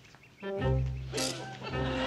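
Background music cue that enters abruptly about half a second in, with sustained low notes and a cymbal-like crash about a second in.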